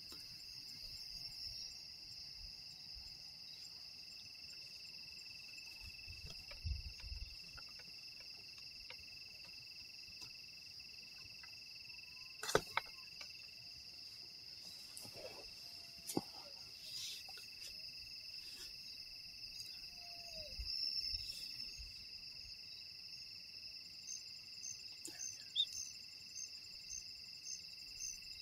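A steady, high-pitched chorus of night-calling insects, with an evenly pulsing insect call joining near the end. A few sharp clicks and low thumps sound over it.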